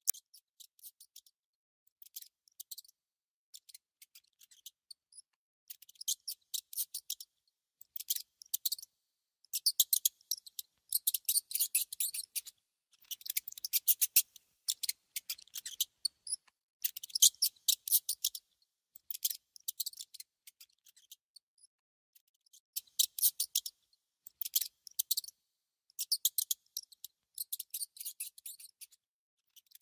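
A mouse gnawing and nibbling at food: bursts of rapid, crisp, high clicks, each lasting about half a second to two seconds with short pauses between. The bursts are densest in the middle.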